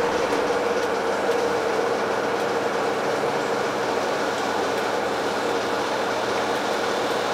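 Running noise inside the passenger cabin of a moving regional train: a steady rumble with a held whine.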